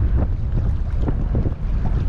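Wind buffeting the microphone in a steady low rumble, with choppy water lapping and splashing in short bursts.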